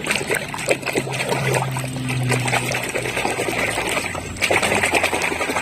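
Water splashing and trickling as a muddy toy vehicle is washed, with a low steady hum for about two seconds starting about a second in.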